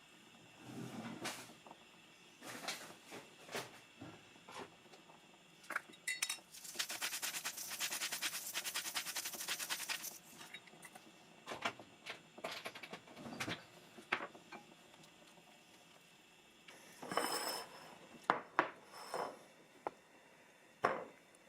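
Kitchen utensils and dishes clinking and knocking, with a few seconds of rapid, continuous clattering of metal on dishware from about seven to ten seconds in and another short cluster of clinks near the end.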